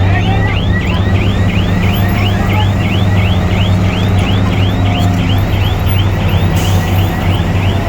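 Heavy diesel engine running steadily with a low hum. Over it, a high-pitched chirp repeats about four times a second.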